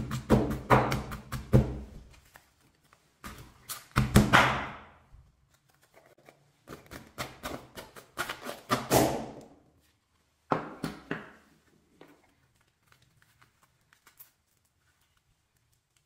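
Stone pestle pounding a sand-filled nano-tape bubble in a stone mortar, in four bursts of quick knocks and crunching with short pauses between. The pounding stops about twelve seconds in, leaving only faint handling sounds.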